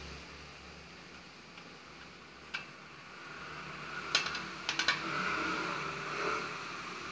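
Small sharp clicks and taps, with a quick cluster of several about four seconds in, followed by a soft scratching for about a second: a pencil marking screw holes through a bent metal bracket held against a post.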